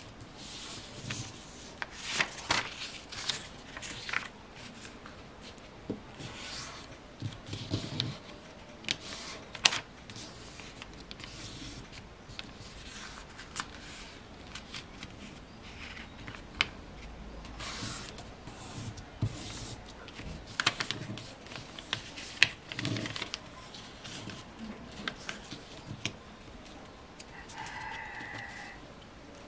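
A sheet of A4 paper being folded and creased by hand into a paper airplane: irregular rustling and crinkling, with sharp crackles as the folds are pressed flat.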